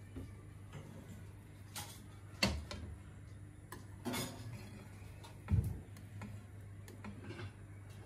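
Metal knife and cake server cutting through a potato omelette and knocking and scraping against the ceramic serving plate: a few scattered clicks and scrapes, with a heavier knock about five and a half seconds in.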